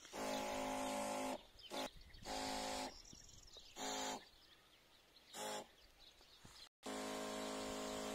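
Garden sprayer's pump humming in four short bursts with the hiss of fine spray from the lance nozzle, then running steadily near the end.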